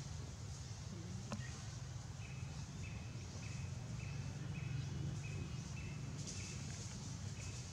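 Outdoor ambience over a steady low rumble: a short, flat chirp from a bird or insect repeats about twice a second from about two seconds in, with bursts of high-pitched hiss and a single click early on.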